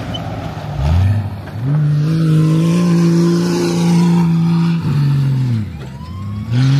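A race vehicle's engine revs up, holds high revs for about three seconds, then drops off, and revs briefly again near the end.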